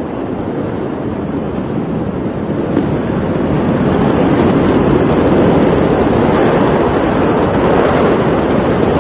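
Steady loud rushing noise with no distinct events, growing louder about four seconds in.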